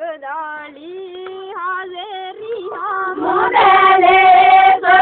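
Women's voices singing together in a group, one voice leading at first, then more voices joining and swelling louder about three seconds in, breaking off right at the end.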